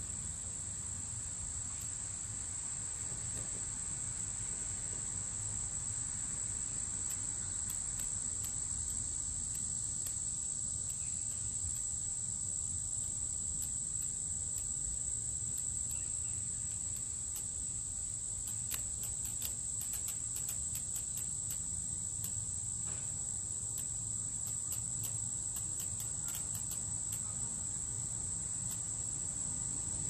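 Steady high-pitched insect chorus, unbroken throughout, with scattered faint clicks and a low rumble underneath.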